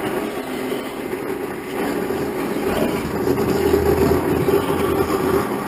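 Waste King 8000 1-horsepower garbage disposal motor running steadily under load, grinding food scraps. It gets a little louder about two seconds in.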